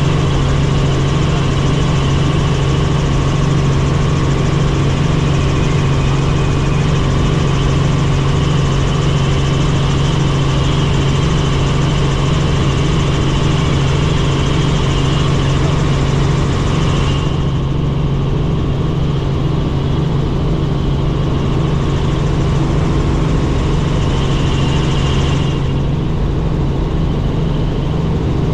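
Helicopter in flight: a loud, steady drone of its turbine engine and rotors with a strong low hum. In the second half the brighter hiss above the drone goes dull for several seconds, then comes back near the end.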